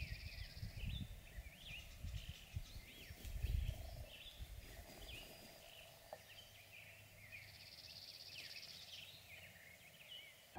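Faint bird chirps and twitters, many short quick calls scattered throughout, over a low rumble that is strongest in the first few seconds.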